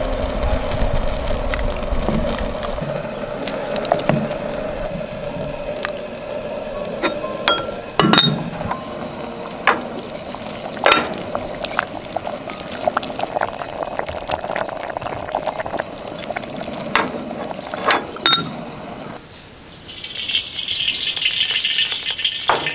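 Kitchen cooking sounds: scattered sharp clinks of utensils against dishes over a steady hum. Near the end, food starts sizzling in a hot pan.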